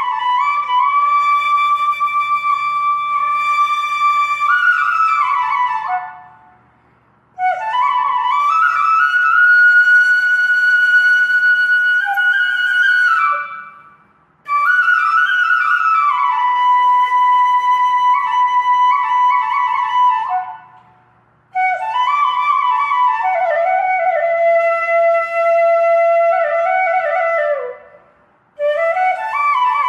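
Slow solo melody on a flute-like wind instrument, played in phrases of about six seconds with long held notes and sliding pitches, each phrase followed by a brief silence.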